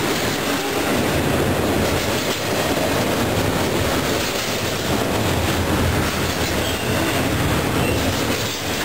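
Double-stack intermodal container cars of a BNSF freight train rolling past, with a steady, unbroken noise of wheels running on the rails.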